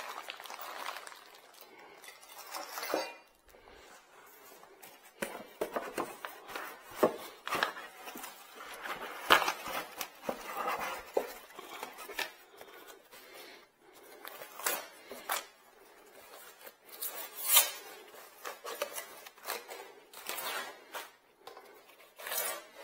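Dust collector parts and packaging being handled by hand while unpacking: irregular rustling with scattered clicks and knocks, the sharpest about nine and seventeen seconds in.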